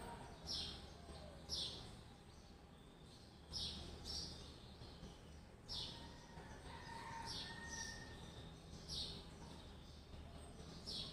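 A small bird chirping: short, high chirps that fall in pitch, repeating about once every second or two, over a faint steady low hum.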